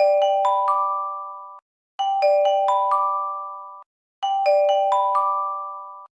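Japanese J-Alert emergency alert chime: four bell-like notes struck in quick succession and left to ring for about a second and a half, repeated three times, about every two and a quarter seconds. It is the attention signal that comes before an emergency message.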